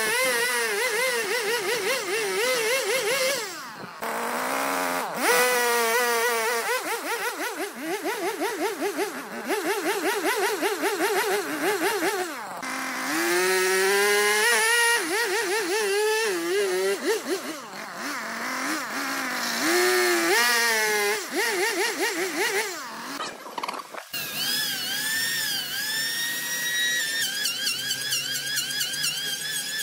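A Husqvarna two-stroke chainsaw revving and cutting through the edge of a thick hardwood slab. Its pitch rises and falls with each cut, with a few short breaks. About 24 seconds in it gives way to an electric hand planer running with a steadier whine.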